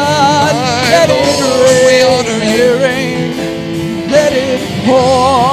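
Worship song music: voices hold long sung notes with a wide vibrato over sustained instrumental backing.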